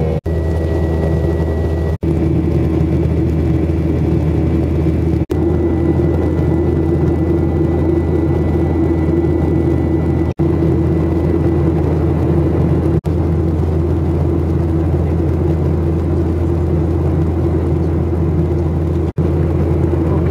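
Steady airliner cabin noise in flight: the drone of the Scandinavian Airlines jet's turbofan engines and airflow, with a faint thin high whine in parts. The sound drops out for an instant six times.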